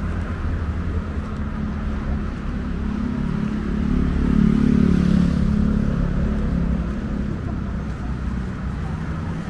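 A motor vehicle passing close by on the street, its engine growing to loudest about four to five seconds in and then fading, over a steady low rumble of street traffic.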